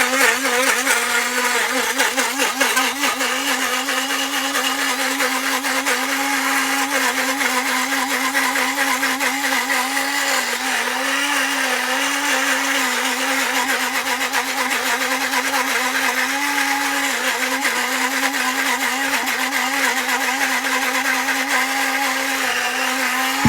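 TROPRO cordless USB-rechargeable portable blender running steadily, blending watermelon, cherries and a little water. Its motor hum wavers slightly in pitch as the fruit churns.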